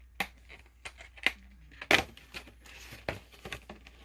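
Card packaging being handled: foil booster packs and cardboard rustling and crinkling, with scattered sharp taps and crackles, the loudest about two seconds in.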